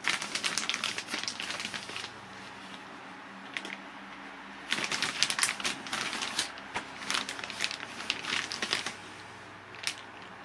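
Clear plastic bag crinkling and rustling as it is handled around a foam model-aircraft wing, in two spells with a quieter pause between.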